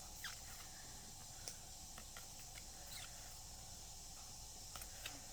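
Faint, scattered clicks and light handling noises of Pokémon trading cards being shuffled and held up, over a steady quiet hiss.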